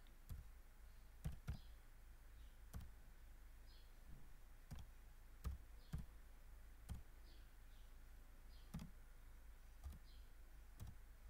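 Computer keyboard keys pressed one at a time: about ten slow, irregularly spaced clicks.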